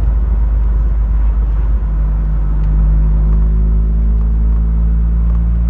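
Cabin sound of a 1984 Mk2 Vauxhall Cavalier with a 2.0-litre SEH four-cylinder engine driving along: a steady engine drone over low road rumble. The engine note firms up and gets slightly louder about two to three seconds in.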